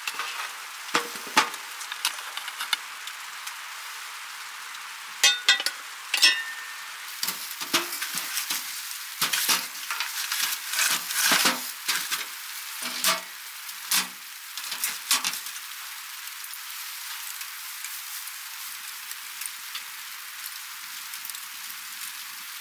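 Small wood-burning tent stove with a steady sizzling hiss throughout. From about five to fifteen seconds in there is a run of sharp crackles and knocks as kindling is fed through the open firebox door. After that only the hiss and faint crackles remain.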